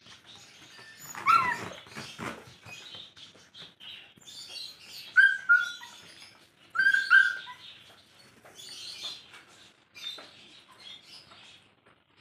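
Rottweiler puppies at play, giving short high yelps: one falling yelp about a second in and pairs of short yelps near five and seven seconds in, over light clicking and pattering of claws on the floor.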